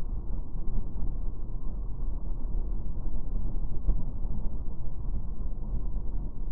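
Muffled, steady low rumble of wind and running noise from a Triumph Explorer motorcycle on the road, in slow-motion playback.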